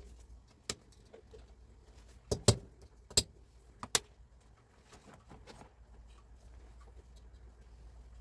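Metal parts and tools clinking and knocking against each other on a workbench, about five sharp knocks in the first four seconds, the loudest a double knock about two and a half seconds in, then lighter ticking.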